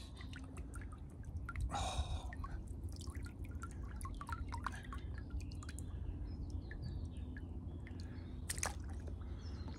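Water dripping and trickling off a large carp held just above the lake surface, in many small irregular drips, with two louder splashes about two seconds in and near the end. A steady low rumble runs underneath.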